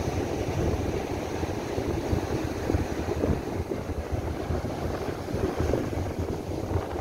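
Wind buffeting the microphone in uneven gusts over the steady wash of ocean surf breaking on the beach.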